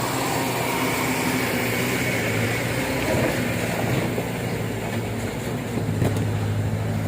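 Diesel truck engine running hard under load as the truck pulls through a soft, broken stretch of road. It is a steady low drone that grows stronger a couple of seconds before the end.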